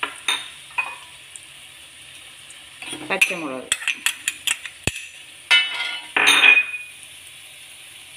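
Small onions (shallots) frying in coconut oil in a pan, with a steady sizzle. A spoon clinks and scrapes against the pan as it is stirred, in several short runs, loudest a little past the middle.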